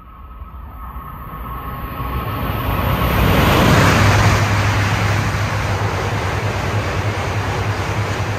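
Coupled E5 and E6 series Shinkansen passing through a station at high speed without stopping. Rushing air and rail noise builds over about three seconds to a loud peak, then holds with a steady low hum as the long train goes by.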